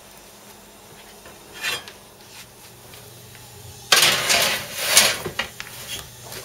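Cast iron skillet clattering and scraping on metal as it is slid onto the oven rack under the broiler. The loud clatter starts suddenly about four seconds in and lasts about a second and a half, after a shorter scrape near two seconds.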